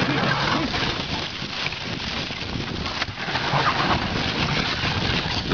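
Steady rushing noise of a dog sled travelling over snow, with wind on the microphone, broken by a few short pitched calls about half a second in and again around four seconds in.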